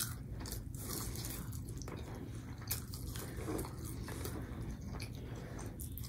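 A person chewing and biting breaded fish sticks, with faint, irregular crunches and clicks.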